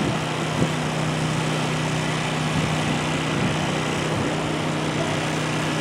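A small engine running steadily with a constant low hum, under a broad even hiss.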